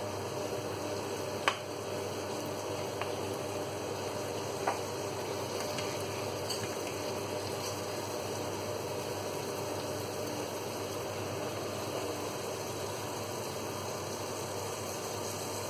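Steady background hiss and hum, with a few sharp clicks of a plastic serving spoon against a frying pan and plastic bowl as fried fish and vegetables are lifted out; three clicks come in the first five seconds, the loudest about one and a half seconds in.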